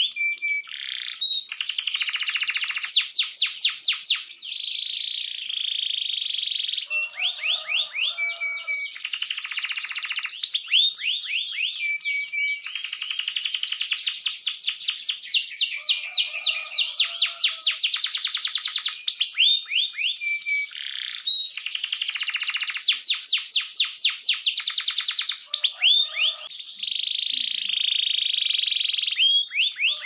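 Domestic canary singing a long, nearly unbroken song of fast trills and rolls, rapidly repeated chirps alternating with buzzy stretches and short held notes.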